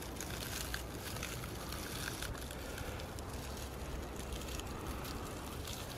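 Steady blowing into a dry-grass tinder nest to coax a char-cloth ember into flame, with faint scattered crackles from the grass.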